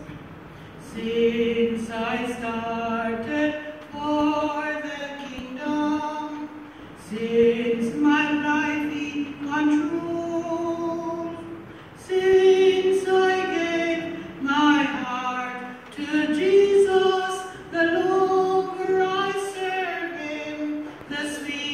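A woman singing a slow gospel song solo and unaccompanied, holding long notes of a second or two with short breaths between phrases.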